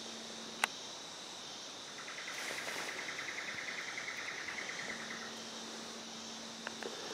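Forest insects calling: a steady high buzz, with a rapid pulsed trill rising in about two seconds in and fading out about three seconds later. A single sharp click comes less than a second in.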